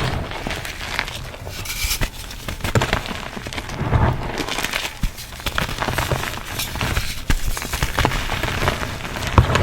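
Blocks of reformed gym chalk and cornstarch crunchies being crushed: dense, irregular crunching and crackling as they break and crumble, with a few louder crunches.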